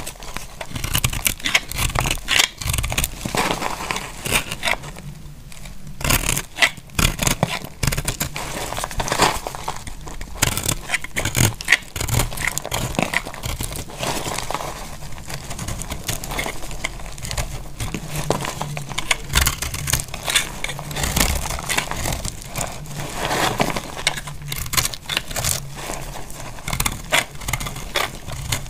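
A bare utility-knife blade cutting into a dry, crumbly bar of soap: a dense, continuous run of crisp crackles and scraping as flakes and chunks break off, easing briefly about five seconds in.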